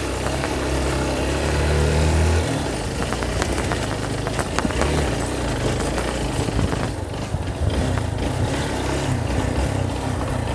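Motorcycle engine running as the bike is ridden over a dirt track, its low note dropping about two and a half seconds in, with scattered knocks and rattles from the ride.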